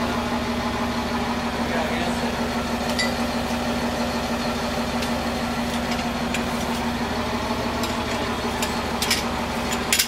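An engine idling steadily with an even, unchanging hum, and a few sharp clicks near the end.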